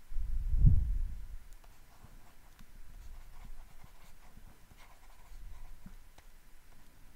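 A short low thump or rumble in the first second, then faint, uneven scratching of a stylus handwriting words on a tablet.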